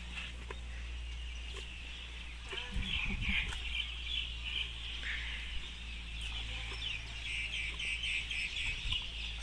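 Chickens clucking in a quick run of short repeated calls, busiest in the second half, over a steady low hum.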